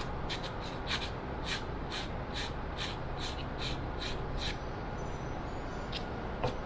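Sandpaper rasping back and forth on a small piece of wood, about two to three quick strokes a second, shaping its cut end to fit; the strokes stop about four and a half seconds in, followed by two light taps near the end, over a steady low hum.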